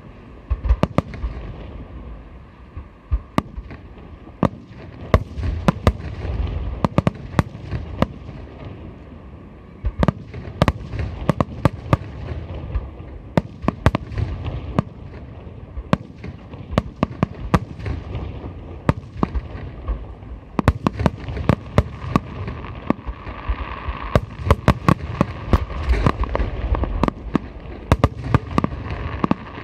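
Aerial fireworks bursting overhead: a dense, irregular string of sharp bangs and crackles over a continuous low rumble, growing busier and denser in the second half.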